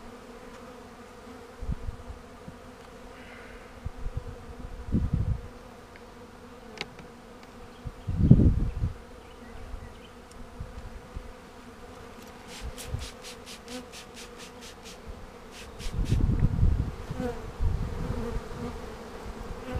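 A swarm of honeybees buzzing around their hive: a steady, even hum. A few dull low thumps break in, the loudest about eight seconds in and again near sixteen seconds.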